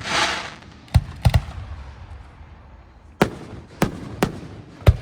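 Aerial firework shells bursting: a short hiss at the start, then about seven sharp bangs, three close together around the first second and the rest spaced out over the next few seconds.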